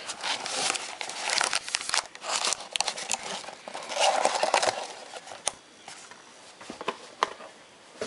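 Crinkling and tearing of a trading card pack wrapper as it is opened by hand, with the cards handled in short crackly rustles and clicks. It is busiest for the first few seconds, then fainter with scattered clicks.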